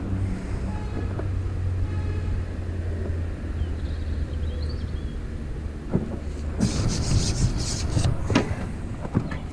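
Steady low engine hum, with a short stretch of rustling and sharp knocks near the end.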